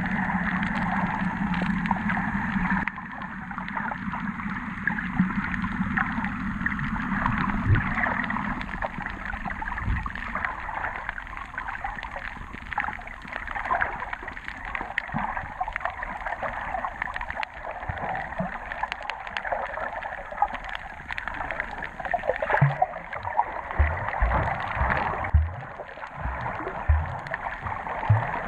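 Underwater sound picked up through an action camera's waterproof housing on a coral reef: a steady watery hiss full of fine crackles. A low hum runs through the first few seconds, and a series of dull low thumps comes near the end.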